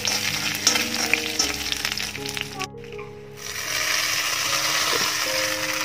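Hot oil sizzling with mustard seeds, dried red chillies and curry leaves in a pan, a spluttering hiss. A little before halfway it drops away briefly, then the sizzling tempering is poured over coconut chutney and keeps hissing.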